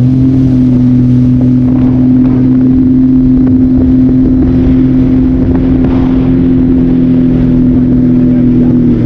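Jet ski engine running at steady high revs under throttle, its pitch stepping up slightly at the start and then held even.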